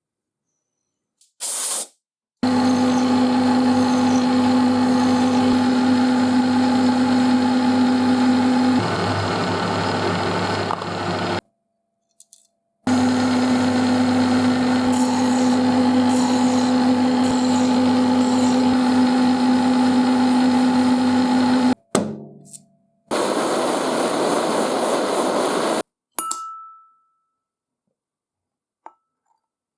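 Electric machine tool running with a steady, pitched hum in two long edited stretches that start and stop abruptly. The tone shifts slightly partway through the first stretch. A shorter stretch of harsher, hissing machining noise follows near the end.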